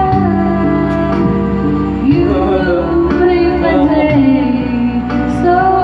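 A song playing: music with a singing voice over held instrumental notes.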